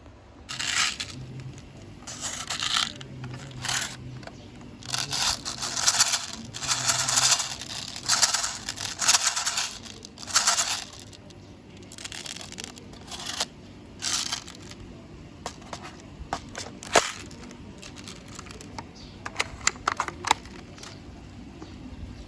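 Repeated short bursts of scraping and rustling, then a handful of sharp clicks in the second half.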